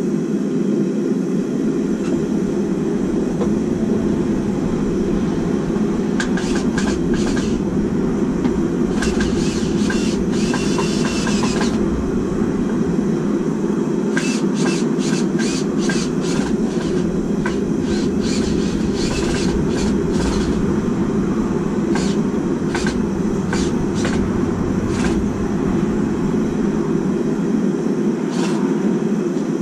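Hammer blows on steel at a blacksmith's anvil, struck in bursts of several quick strikes with pauses between, over a steady low roar that runs throughout.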